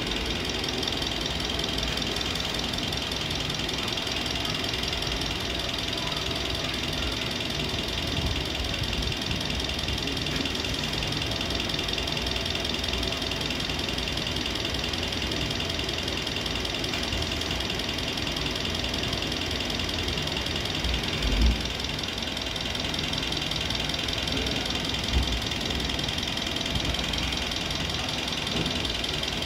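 A machine running steadily, with a fast, even pulsing and a high whine over a low rumble. Two short thumps come about two-thirds of the way through and again a few seconds later.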